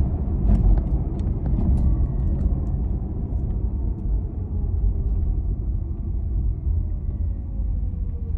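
Inside a moving Tesla: steady low road rumble with a faint electric-motor whine falling slowly in pitch as the car slows. A few sharp rattling clicks come in the first couple of seconds.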